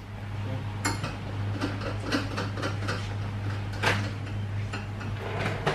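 Scattered light metallic clinks and taps of a wrench working on the front tie rods as they are tightened after the toe adjustment, over a steady low hum.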